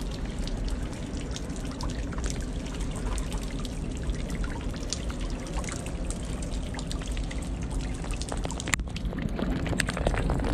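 Water dripping from an overhanging limestone rock face into a river: many drops pattering and trickling onto the water surface, with one sharp click near the end.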